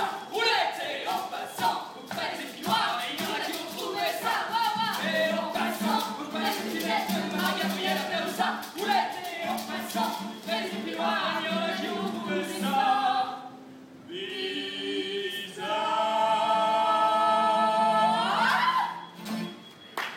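Three voices singing a lively song together to an acoustic guitar. Near the end they hold a long final chord that rises in a slide and stops.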